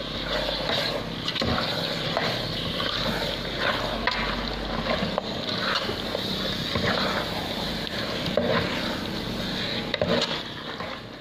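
Metal spoon stirring pork rib pieces in an aluminium pot, with irregular scrapes and clinks against the pot over a steady background hiss.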